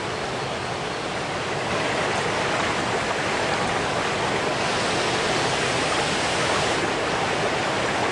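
Garden fountain jets splashing into their basins: a steady rush of falling water, with more hiss for a couple of seconds around the middle.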